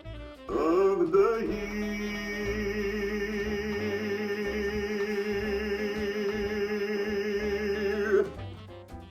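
Recorded song with a singer holding one long wavering note over a steady accompaniment, which cuts off about eight seconds in; quieter, different music follows.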